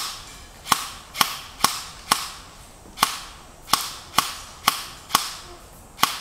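Airsoft rifle firing single shots, about a dozen at an uneven pace of roughly two a second, each a sharp crack with a short ringing tail.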